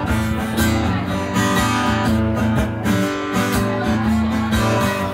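Acoustic guitar strummed in a steady rhythm, a short instrumental passage between sung lines of a song.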